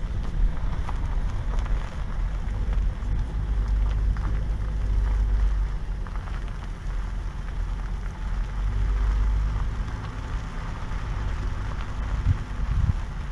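Steady low rumble of a car moving slowly, heard from inside the cabin, with a fine crackling noise over it.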